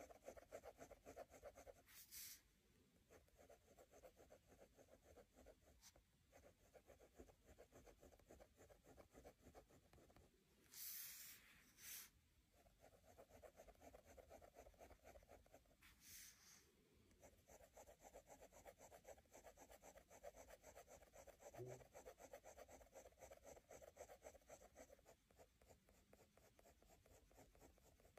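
Ballpoint pen crosshatching on paper: a faint, rapid run of short scratchy strokes, with a few louder, longer scratches scattered through.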